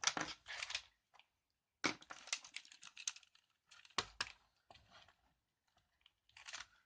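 Scattered clicks and scraping in short separate clusters, from hands and tools working on a mechanical keyboard's circuit board while its LEDs are desoldered.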